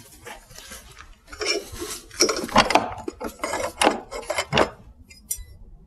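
Steel scraping and clattering as a mower blade and tools are handled at a bench vise: a run of irregular rough scrapes and knocks, the loudest around the middle, then a sharp click near the end.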